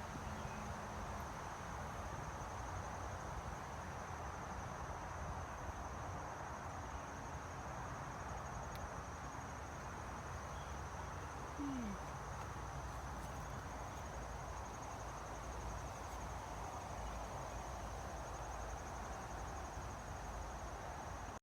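Insects chirring: a steady, high-pitched, finely pulsing trill that continues unbroken over a steady background hiss, with one brief low falling note about halfway through.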